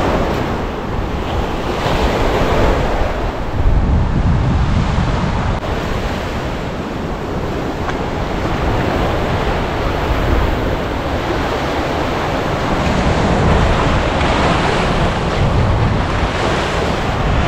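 Surf breaking on a beach, with strong wind buffeting the microphone. The rushing noise rises and falls with the waves and gusts.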